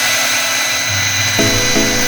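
CNC wood router's spindle whining at a steady high pitch, over background music whose notes come in about a second and a half in.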